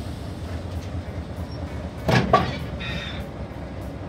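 Diesel locomotive no. 63240, a BB 63000-class engine, running with a steady low hum, with a brief louder noise about two seconds in.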